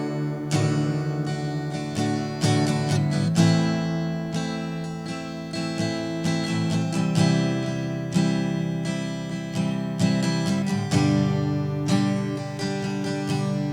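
Acoustic guitar strumming chords, with no voice, between sung lines of a worship song.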